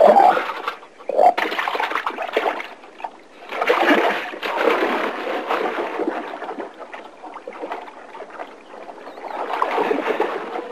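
Water splashing and churning in several surges, sharpest at the start and about a second in, with a longer stretch in the middle and another swell near the end as a person breaks the surface.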